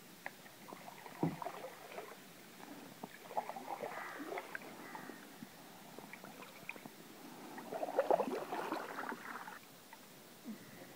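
Canoe paddle dipping and pulling through calm water, splashing and dripping in about three strokes several seconds apart, the last the loudest.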